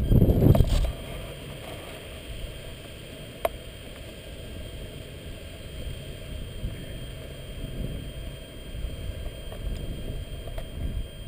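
Low rumble of wind buffeting the model plane's onboard camera microphone as it is carried, with a handling bump at the start and a single sharp click about three and a half seconds in.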